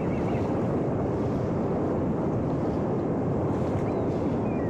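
Steady rush of wind over the microphone of a camera riding aboard a home-built RC plane in flight. A faint wavering high tone comes in briefly at the start and again near the end.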